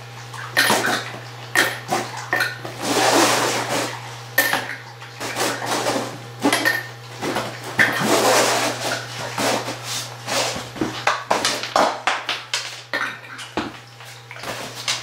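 A large dog eating and licking out of a stainless steel bowl, its tongue and muzzle clinking and knocking the metal in an irregular clatter mixed with wet lapping. A steady low hum runs underneath.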